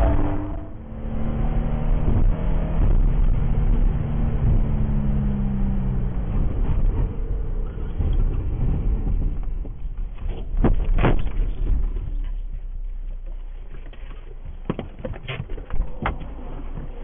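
Car driving with heavy low road rumble, heard from inside the cabin, with a droning tone that sinks slightly over the first few seconds. From about ten seconds in come a series of sharp knocks and thumps as the car leaves the pavement and bumps over the rough grass verge.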